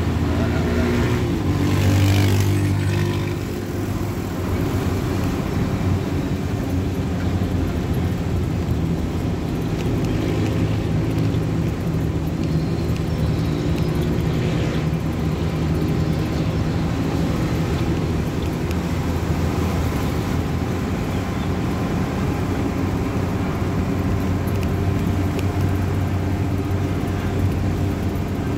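A vehicle's engine running and tyre and road noise, heard from inside the cabin while driving. The engine note swells briefly about two seconds in, then holds steady.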